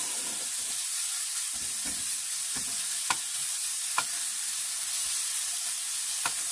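Ground chicken sizzling steadily in a skillet as it browns over medium heat, stirred and broken up with a spatula. There are a few sharp clicks of the spatula against the pan, about three and four seconds in and again near the end.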